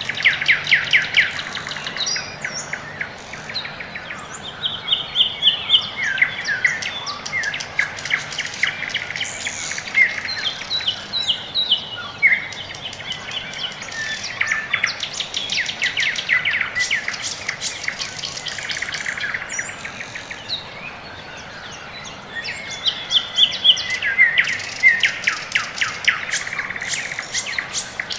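Songbirds singing: repeated phrases of fast trills and chirps that come and go every few seconds.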